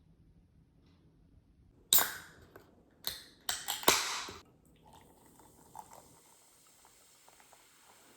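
A few sharp knocks and clatters of objects being handled: one loud hit about two seconds in, a quick cluster of hits a second later, then faint small clicks.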